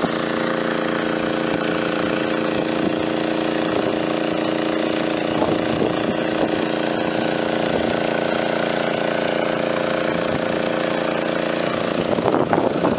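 Small gasoline engine of a portable water pump running steadily at one constant speed.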